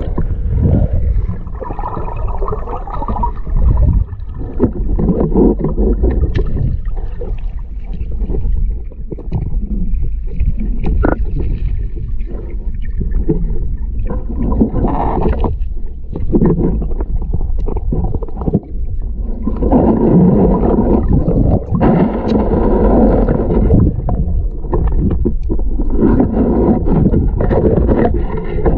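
Underwater noise picked up by a submerged camera: a steady low rumble of moving water with louder gurgling stretches about halfway through and again toward the end.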